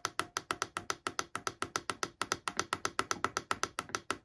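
Chinese diesel heater LCD controller ticking rapidly and evenly, about seven short ticks a second, as its up button is held down and the thermostat setting steps up one degree per tick toward the 45 °C maximum.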